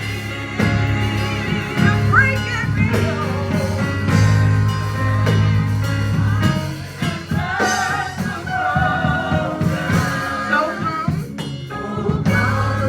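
Live gospel worship music: a singer holding long wavering notes over sustained keyboard chords and a steady bass.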